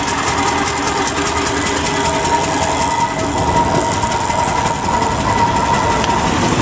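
Engine of a brass-era veteran car running with a fast, even mechanical clatter as the car pulls past and away.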